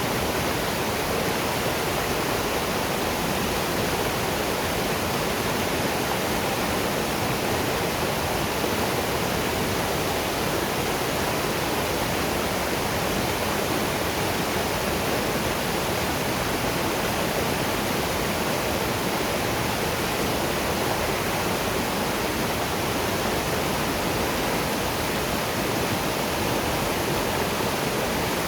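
Waterfall rushing steadily: an even, unbroken roar of falling water with no pauses or separate splashes.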